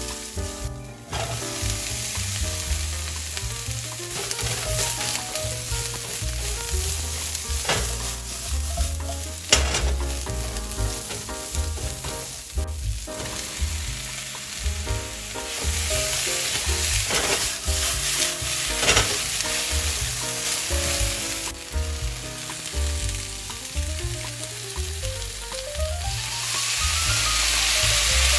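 Garlic and then chicken and broccoli sizzling in a hot nonstick wok as they are stirred with a silicone spatula, with a few sharp scrapes along the way. The sizzle grows louder near the end. Soft background music plays underneath.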